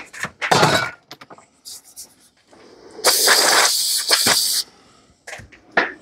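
Compressed-air blow gun blasting a steady hiss for about a second and a half, then cutting off sharply, blowing clean a lawn mower's plastic air cleaner base. A short loud noise comes about half a second in, before it.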